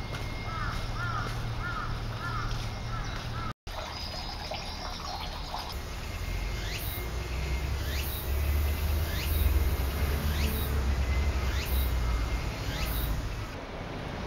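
Birds chirping. A short warbled phrase repeats several times in the first three seconds, and later comes a run of quick downward-sliding calls about once a second. Under them runs a low, steady rumble of city traffic that grows louder in the second half.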